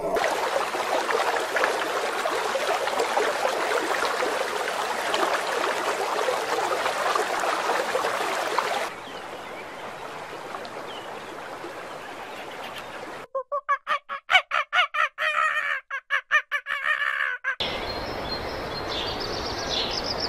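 A steady loud hiss of water spraying over an elephant's hide, cut after about nine seconds to a flock of flamingos that bursts into a rapid flurry of goose-like honking calls for a few seconds. Near the end the honking stops, leaving a steady background with high bird chirps.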